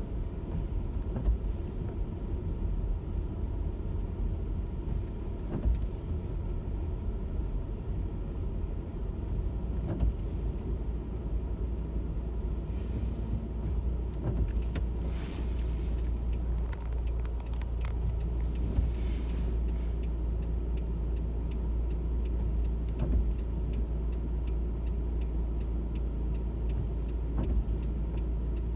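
Steady low rumble of a car driving, heard from inside the cabin. A few brief hissing swells come around the middle, and a faint, fast, regular ticking runs through the later part.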